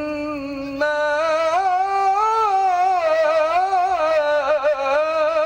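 Man's melodic Quran recitation (tilawah) sung into a handheld microphone: one long unbroken held vowel that steps up in pitch about a second in, then winds through gliding ornamental turns and a quavering run near the end.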